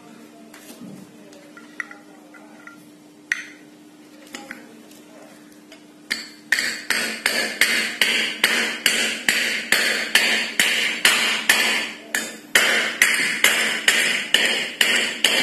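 Wooden mallet tapping a new ball bearing down into the hub of a ceiling fan's metal end cover to seat it. After a few faint handling clicks, steady blows start about six seconds in and go on at about two to three a second.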